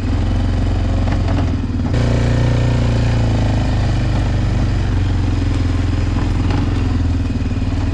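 A vehicle's engine running steadily while it is ridden, with a change in the engine note about two seconds in.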